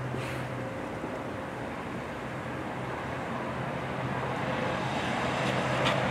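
Distant engine noise, a steady hum that grows slowly louder, from passing traffic or an aircraft overhead. Two short ticks near the end.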